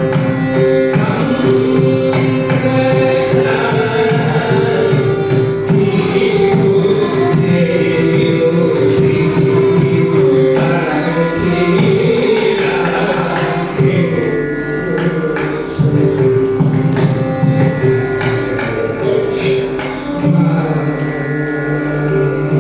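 Carnatic classical performance: a male voice sings with violin accompaniment, while a mridangam plays a running pattern of crisp strokes under the held and gliding notes.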